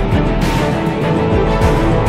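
Loud theme-style background music, with sustained notes and recurring percussive hits.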